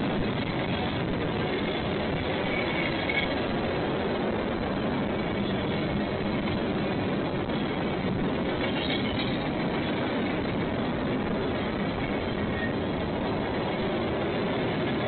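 Train cars rolling past on the rails, a steady rumble with no horn.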